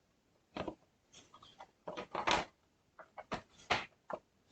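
Bottom case of an all-in-one PC being pressed and worked into place by hand: a series of short, irregular clicks, knocks and scrapes as it is pushed to seat.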